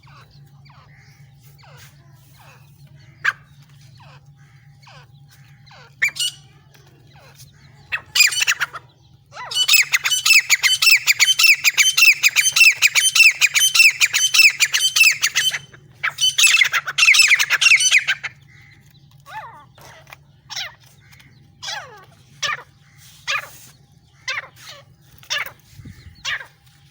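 Francolin (teetar) calling: scattered short calls, then a loud, rapid run of repeated rising notes for about six seconds, a short pause and a second run, then single falling calls spaced a second or so apart.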